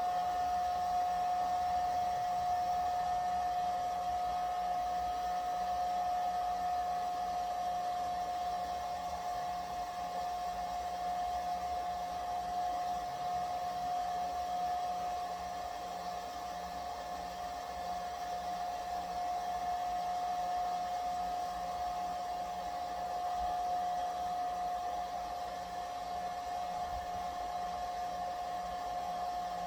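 Hair dryer running steadily: a constant whine over a rush of air.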